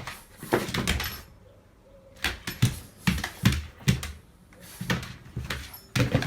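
A series of irregular knocks and thumps, about ten strokes at uneven spacing, in a small room.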